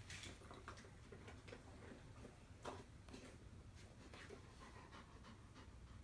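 Near silence: room tone with a few faint scattered clicks, one slightly louder a little under three seconds in.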